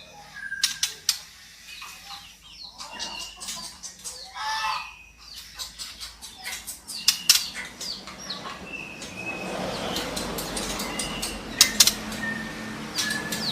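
Female white-rumped shama (murai batu) calling, with rapid sharp clicking chips and short whistled notes. A steady rushing noise comes in about two-thirds of the way through.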